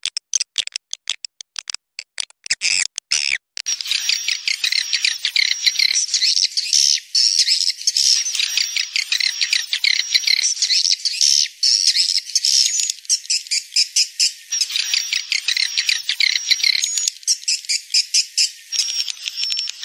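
Swiftlet-calling lure recording of edible-nest swiftlets, mixed from roosting sounds and played to draw swiftlets into a bird house. It opens with a run of sharp clicks, then about three and a half seconds in gives way to dense, continuous high-pitched twittering and chirping from many birds, repeating in loop-like blocks.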